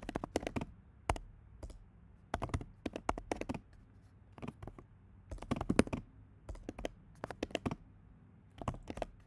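Computer keyboard typing: quick runs of keystrokes in irregular bursts with short pauses between them, as a chat message is typed.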